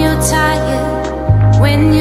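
Background music: a held bass note that steps to a new note a little over a second in, under a slow melody.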